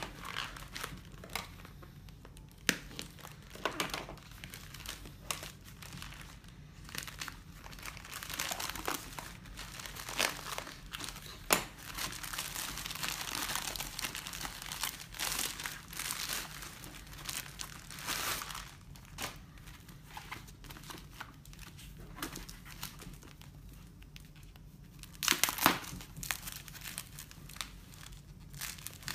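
A plastic courier mailer bag being crinkled and torn open by hand: irregular crackling and rustling, heaviest in the middle, with a louder burst of rustling near the end.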